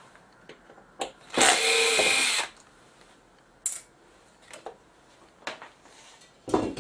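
Cordless power screwdriver running for about a second, backing out a screw from a metal cover plate. It is followed by several short, light knocks as the cover is handled and lifted off.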